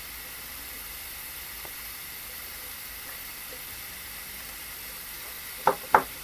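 Steady hiss of an Iroda SolderPro butane gas soldering iron burning with its tip glowing hot, turned up for more heat to melt a solder joint. Two sharp knocks near the end.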